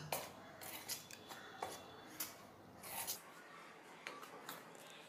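A metal spoon stirring dry rice flour in a stainless steel bowl: faint, irregular scrapes and light scratches of the spoon through the flour and against the bowl.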